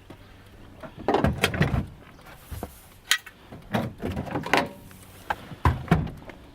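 Car-trunk tools and the spare being handled: an irregular series of knocks and clanks, some briefly ringing, as things are lifted out and set down.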